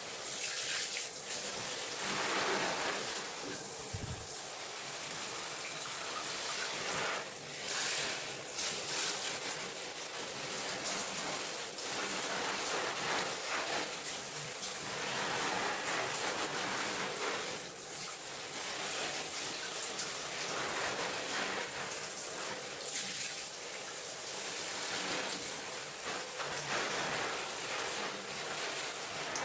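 Water spraying onto potted plants and their leaves, a rain-like hiss that swells and eases every few seconds as the spray moves across them.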